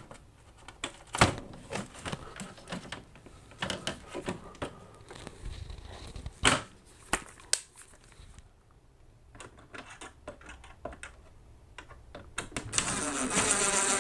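Plastic vent-shade frame pieces clicking and knocking as they are pushed and fitted against a ceiling vent. Near the end a cordless drill runs for about a second and a half, starting a screw.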